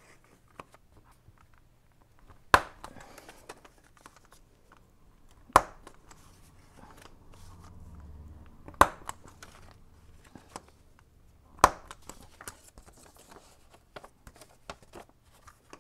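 Plastic corner-rounder punch snapping shut four times, about three seconds apart, as it rounds the corners of a paper envelope, with paper rustling between the punches.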